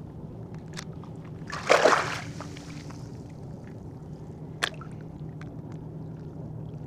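Water sloshing, with one loud splash about two seconds in and a single sharp click near five seconds, over a steady low hum.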